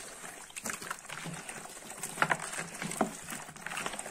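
Hands mixing cleaned, salted roach in a plastic basin: wet fish squelching and slapping against each other and the bowl in a run of quick, irregular pats and clicks.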